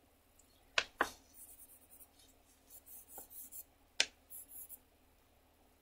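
Pencil shading on sketchbook paper in short, quiet scratchy strokes, with three sharp taps: two close together about a second in and one near the middle.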